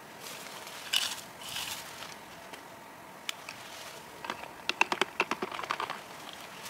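Blueberry bushes rustling about a second in, then a quick run of small hard clicks, about ten a second, between about four and six seconds in: a berry-picking scoop being emptied into a plastic jug, berries and scoop rattling against the plastic.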